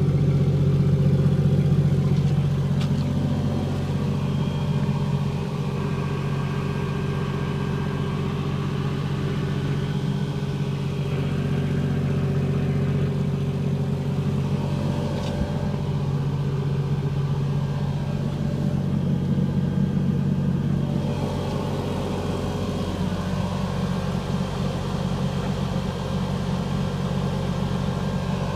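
1953 Chevrolet 210's 235 cubic-inch inline-six engine running steadily at low speed, with a few mild rises and falls in engine speed.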